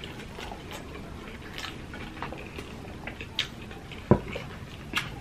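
Close-up eating sounds from hands-on eating of fried milkfish and rice: chewing and lip smacks with scattered small clicks. A single low thump comes about four seconds in.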